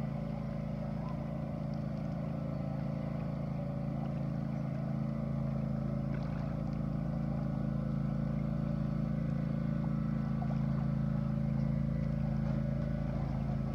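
Boat motor running at a steady speed, a constant hum that does not rise or fall.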